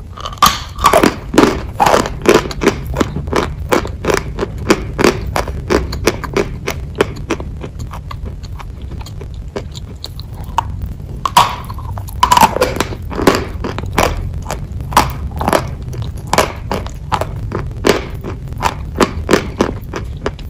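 Biting and chewing a block of hard white chalk close to the microphone: a dense run of sharp, dry crunches that thins out for a few seconds around the middle, over a steady low hum.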